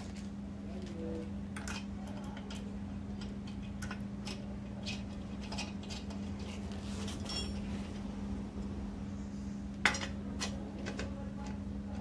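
Light metallic clinks and clicks of steel wheel nuts being handled and threaded by hand onto the studs of an alloy car wheel, with one sharper clink about ten seconds in, over a steady low hum.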